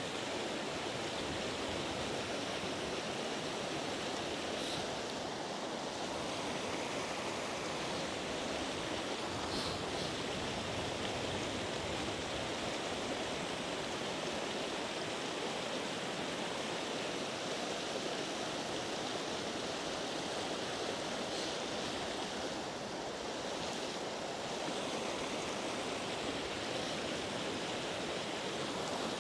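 Small river rapids rushing steadily over rocks, an even wash of white water.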